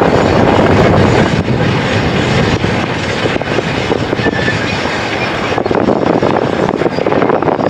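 Amtrak passenger train running along the tracks: a steady, noisy rumble of wheels on rail.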